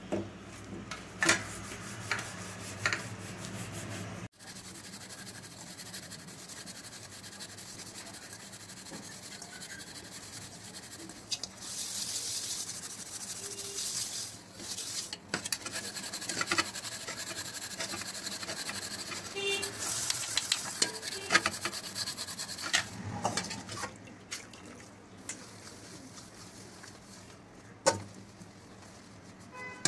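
A scrubber rubbing and scouring a cooking pot caked with burnt-on tea, in uneven stretches of scratchy hiss, with occasional clinks and knocks of the metal vessel.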